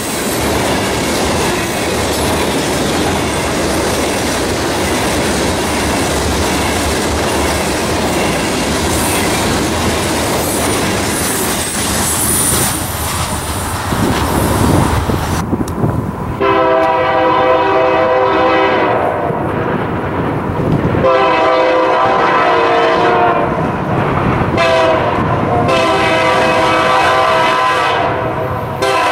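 Freight train of covered hopper cars rolling past, wheels clicking over the rail joints with a steady rumble. About halfway through, an approaching diesel locomotive's multi-note air horn sounds in a series of long blasts with short gaps, warning at a grade crossing.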